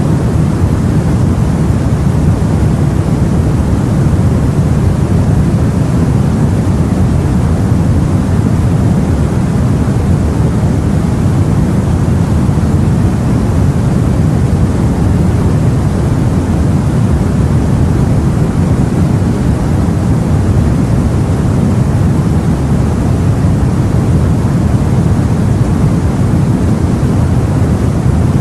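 Steady, low rumbling sea noise as heard aboard a boat, even throughout with no distinct wave breaks.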